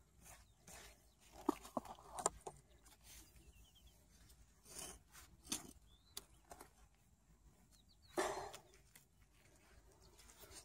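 A small metal hand hoe and gloved hands digging in dry, stony soil to unearth a desert truffle: scattered scrapes and knocks in the earth, the loudest a scrape about eight seconds in.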